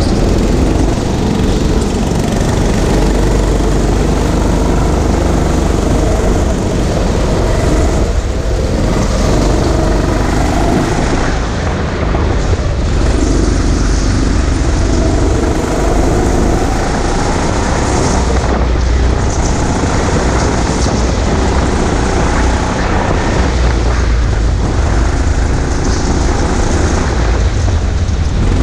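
Go-kart engine running hard around a track, its revs rising and falling through the corners, with a heavy low rumble on the kart-mounted camera.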